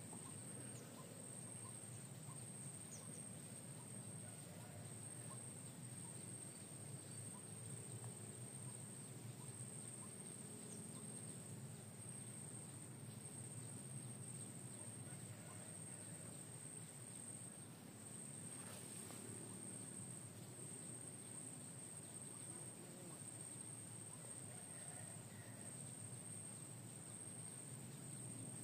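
Quiet waterside ambience: a steady high insect drone over a low background hum, with a few faint bird chirps.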